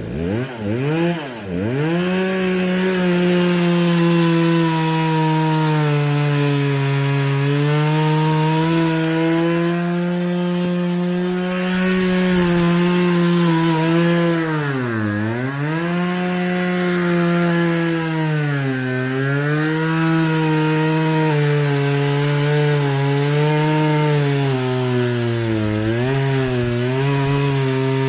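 Poulan Pro two-stroke chainsaw running at high speed and cutting wood. Its engine pitch drops twice sharply near the start, then sags deeply about halfway through and several more times later, recovering each time as the chain bogs in the cut.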